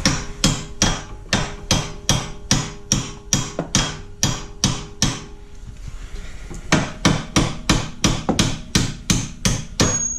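Steady hand-hammer blows on metal, about two to three a second, in two runs with a pause of about a second and a half between them; a ringing tone carries through the first run.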